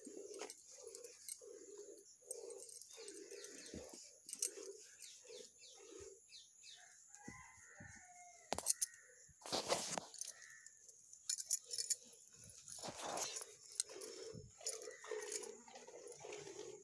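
Hand-milking of a cow into a steel pot: milk squirting in soft, even strokes, about two a second, as the two hands alternate on the teats. The strokes pause in the middle. A short bird call comes about 7 seconds in, and a sharp clatter just before 10 seconds.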